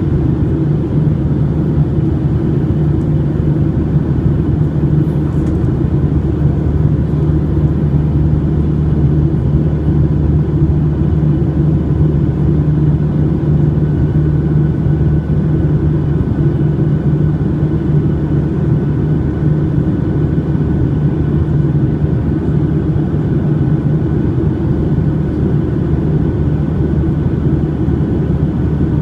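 Steady drone inside the cabin of a Boeing 737-800: its CFM56-7B engines running and air rushing past the fuselage, heard from a window seat, with a faint high steady tone joining about halfway through.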